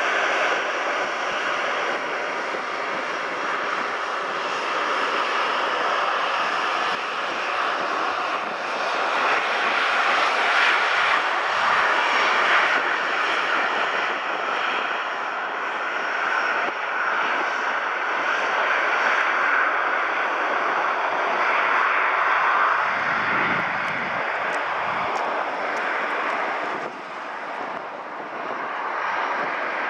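Jet engines of a Lufthansa Boeing 737 on final approach, running steadily as the airliner comes in low, touches down and rolls along the runway. A deeper rumble joins about three-quarters of the way through.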